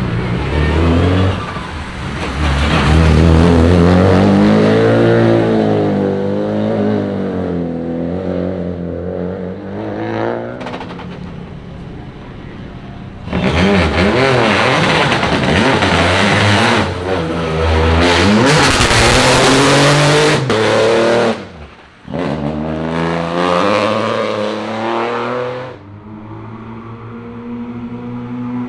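Rally car engines revving and accelerating hard, their pitch rising and falling again and again through the gears. The loudest stretch comes about halfway through as a car accelerates hard up close. The engine cuts briefly, bursts again, and then settles to a steadier, quieter note near the end.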